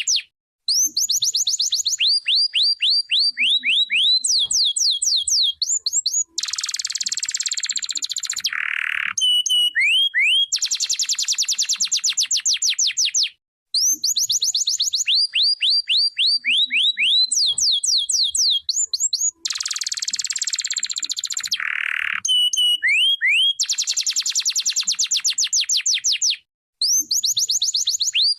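Domestic canary singing: long rapid trills of quickly falling whistled notes in runs of different speed and pitch, broken by a harsh rasping passage. The same song, about 13 seconds long, is heard twice.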